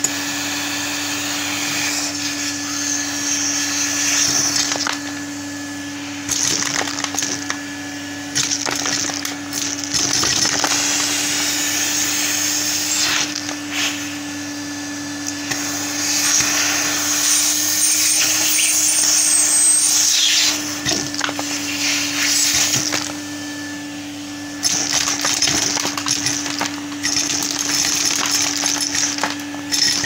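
Henry vacuum cleaner running with a steady hum while small Lego bricks are sucked up through its metal wand, rattling and clattering through the pipe with a whistling rush of air. The rattling comes in spells, with a few quieter stretches where only the motor and airflow are heard.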